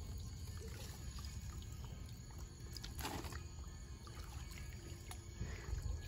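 Faint handling of a wet fishing net: scattered small clicks and a brief rustle about three seconds in, with trickling water, over a steady low rumble.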